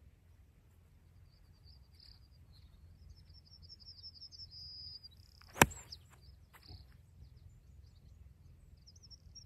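A sand wedge strikes a golf ball a little past halfway: one sharp, crisp click. Small birds chirp and trill throughout, with a trilling run just before the strike.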